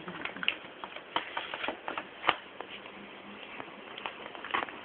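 Paper bag crackling and rustling in quick irregular clicks as a kitten shifts and paws about inside it, with one sharper crack a little past two seconds in.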